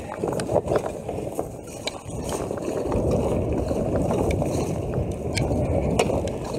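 Mountain bike ridden down a wet, muddy trail: a rough, steady rumble of tyres on the soaked ground with scattered sharp clicks and rattles from the bike, dropping briefly about two seconds in.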